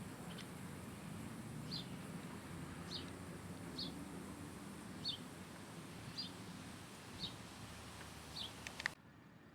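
A small bird repeating a short, high, falling chirp about once a second, over a low steady background rumble. Near the end there are a couple of sharp clicks, and then the sound drops away suddenly.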